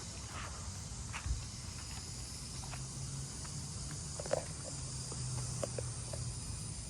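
Faint steady background hiss with a low hum, broken by a few soft knocks about a second in and again around four seconds in.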